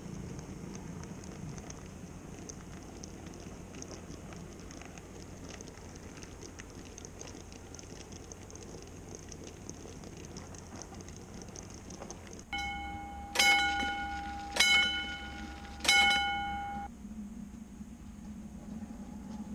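N-scale Minitrix V 160 model train running along the track with a faint, even rattle of small clicks from the wheels and wagons. About twelve seconds in a bell-like chime sounds three times, about a second and a half apart, over a steady ringing tone, and is the loudest thing heard.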